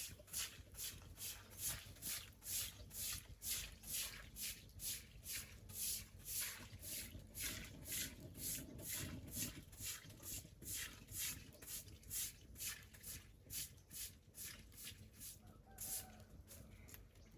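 Rhythmic scraping strokes, about two to three a second, kept up steadily throughout.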